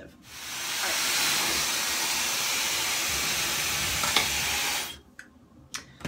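Dyson Supersonic hair dryer blowing steadily while styling and smoothing hair, swelling in at the start and cutting off near the end, with a short click shortly before it stops.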